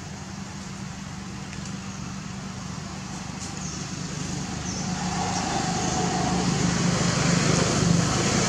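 A motor vehicle's engine running with a steady low hum, growing gradually louder through the second half as it draws near.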